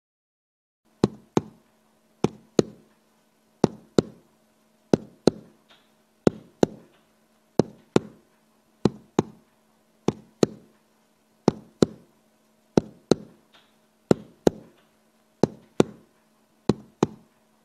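A soundtrack beat of paired thuds, two quick knocks repeating about every 1.3 seconds over a faint steady hum, starting about a second in.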